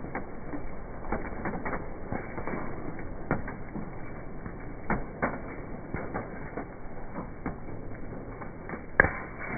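Wood crackling and popping irregularly as it burns in a Canway stainless-steel wood-burning camp stove. One sharp pop near the end is the loudest.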